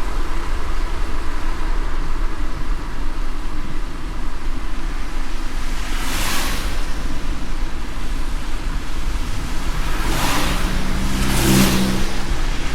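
A car driving on a wet road in the rain: a steady low rumble of engine and tyres under a hiss of rain and spray. A few brief swishes come at uneven gaps, with a short hum near the end.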